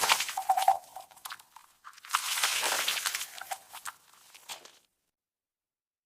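Crunchy bites and chewing of crisp fruit. There is a loud burst of crunching at the start and another about two seconds in, with scattered smaller crunches between, and it stops just under five seconds in.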